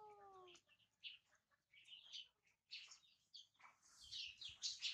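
Faint, high-pitched squeaks and chirps of a baby macaque, scattered through near silence and a little louder near the end.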